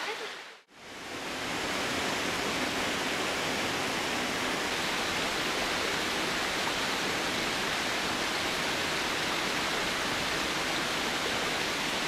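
Steady rush of a mountain stream tumbling over rocks, a constant hiss of water. It fades out briefly under a second in and then returns, steady throughout.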